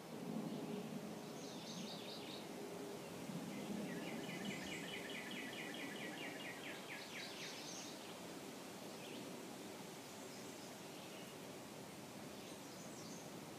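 Birds singing in woodland: a few short high song phrases and, about four seconds in, a long trill of rapidly repeated notes lasting some three seconds, over a steady low background rumble with a faint hum.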